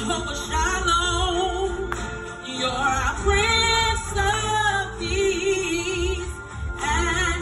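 A woman singing a gospel song into a microphone over instrumental accompaniment, her voice wavering on held notes and running up and down in quick melodic runs.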